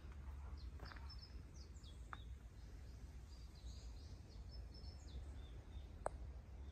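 Faint outdoor ambience with small birds chirping in short high calls over a steady low rumble; a single sharp click about six seconds in.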